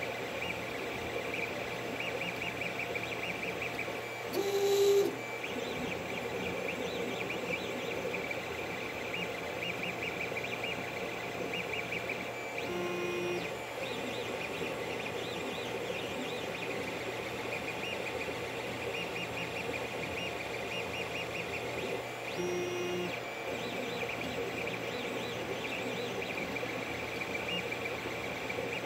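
Creality CR-10 3D printer printing: its stepper motors run with a steady, fast chirping tick, broken three times by a short whine, the loudest about five seconds in.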